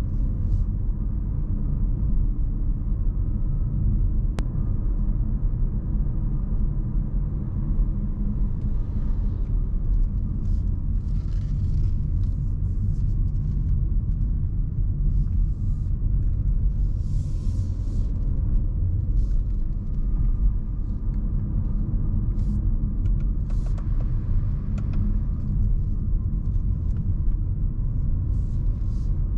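Inside the cabin of a 2024 Renault Symbioz E-Tech Full Hybrid on the move: a steady, low road and tyre rumble. A few faint, brief higher hisses come and go.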